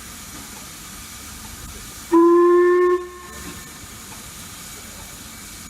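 LMS Black 5 steam locomotive 45212 hissing steam steadily; about two seconds in it gives one loud blast on its whistle, a single steady note lasting under a second, the right-away signal just before it departs.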